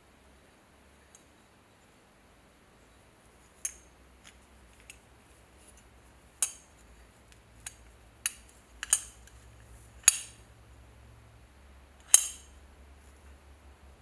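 Sharp metallic clicks and taps from a brass belt buckle being handled: its hook and hinged clasp knock against the plate, about seven clicks spaced unevenly, the loudest near the end.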